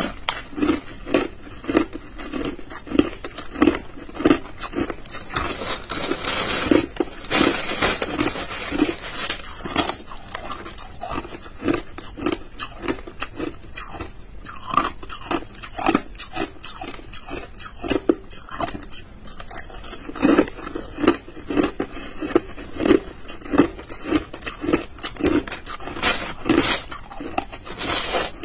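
Crushed ice being chewed: a run of crisp crunches, about two a second.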